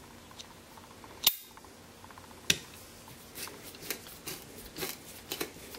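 Sharp metallic clicks and light taps as steel screwdriver bits are handled and fitted into the brass stem of a handmade multi-bit screwdriver. A loud click comes about a second in and another a second later, then a run of lighter clicks.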